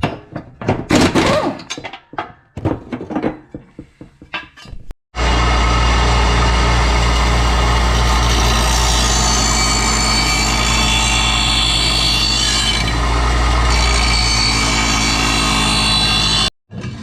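Metal clanks and knocks, then an electric grinder running steadily with a loud hiss of grinding, sharpening a riding-mower blade, starting abruptly about five seconds in and stopping abruptly shortly before the end.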